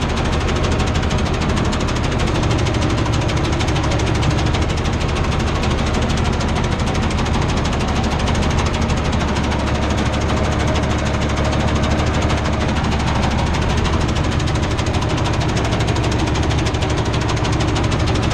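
Farm tractor's diesel engine running steadily at working speed, heard from inside the cab, with a fine even pulse and no change in pitch or level.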